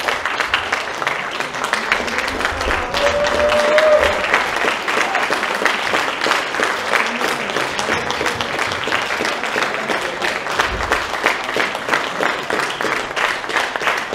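Concert audience applauding, dense steady clapping from a full hall. A short held call rises out of the crowd about three seconds in.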